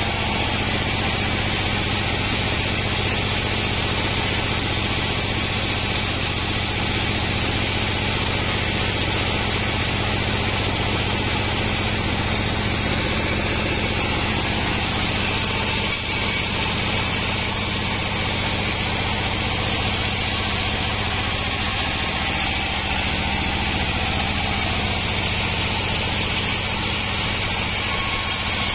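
A sawmill band saw running steadily: a constant low hum with an even, higher noise above it.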